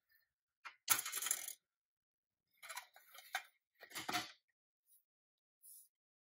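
Rusty pressed-steel Nylint Ford Bronco toy clattering and scraping against a metal tabletop as it is handled and turned: a loud metallic clatter about a second in, then two more clinking, scraping bursts around three and four seconds in, and a faint clink near the end.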